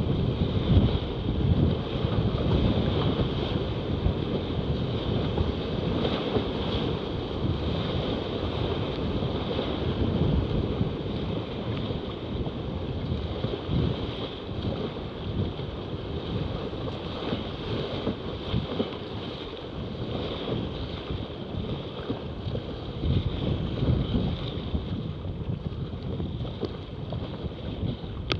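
Whitewater rapids rushing and splashing around a kayak as the paddle blades strike the water, with wind buffeting the action camera's microphone. The noise is steady and a little louder in the first half.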